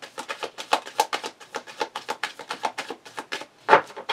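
Tarot cards being shuffled by hand: a quick run of crisp card flicks, about eight a second, with one louder knock near the end.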